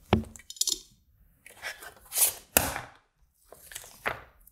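A circuit board knocking on a cutting mat near the start, then several bouts of crinkling and tearing as a small blue plastic packet of parts is handled.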